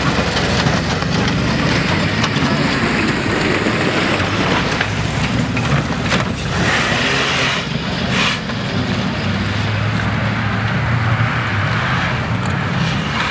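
Off-road 4x4 engines running hard under load as the vehicles drive through deep mud.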